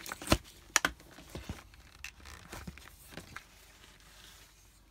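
A doll being freed from its cardboard and plastic packaging: a few sharp snaps and clicks in the first second and a half, then lighter crinkling and rustling that dies away.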